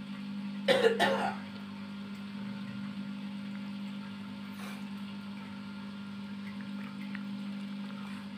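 A short double cough about a second in, over a steady low hum.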